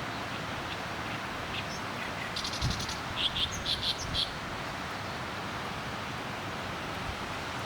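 A small bird sings a short burst of high chirps and a quick trill, about two to four seconds in, over a steady rushing background noise.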